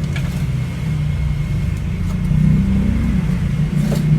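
Steady low mechanical rumble with a droning hum, and a faint steady high tone above it.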